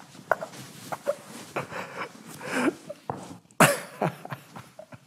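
A man laughing hard in short breathy bursts, with one louder burst about three and a half seconds in.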